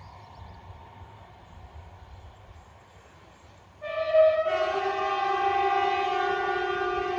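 Train horn sounding over a faint low rumble of the approaching train. About four seconds in there is a short single-tone blast, then a loud two-tone chord held for about three seconds.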